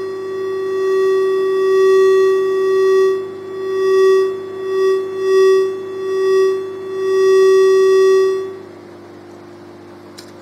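Steady electronic buzzing tone from an amplifier fed by a vintage photocell that is picking up the rapid on-off flicker of a red bicycle light set to 'continuous'. The tone swells and fades several times as the light is moved over the cell, then cuts off near the end when the light is taken away.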